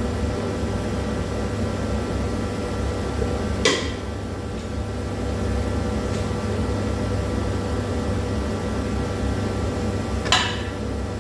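A steady mechanical hum of several fixed tones, with two sharp metal clinks, one a little under four seconds in and one about ten seconds in, each ringing briefly, from metal suspension parts and tools being handled.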